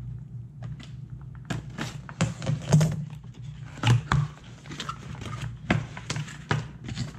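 A cardboard product box being cut open with scissors and opened by hand: a string of short scrapes, rustles and knocks of cardboard flaps and sleeve, over a steady low hum.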